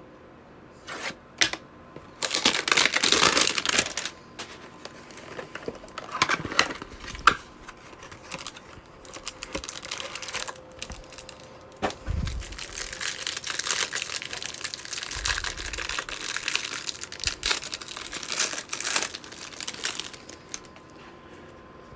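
Plastic wrapping on a basketball trading-card hanger box crinkling and tearing as it is opened, in several bursts of rustling with short pauses between.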